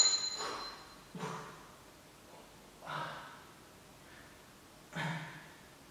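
A man breathing hard through press-ups: a short, forceful exhale about every two seconds, three in all.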